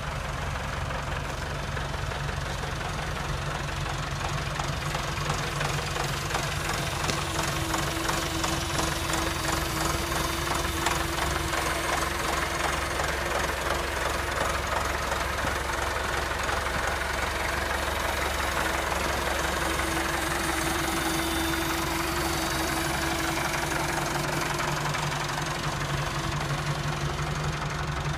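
Massey Ferguson 390 tractor's four-cylinder diesel engine running steadily while it carries a heavy five-furrow reversible plough on its rear hitch, a load it only just manages. The engine is a little louder through the middle and eases off near the end.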